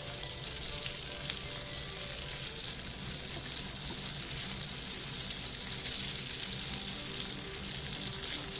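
Oyster-sauce mixture with chillies, garlic and sesame oil sizzling steadily in a hot pan, with fine crackles throughout.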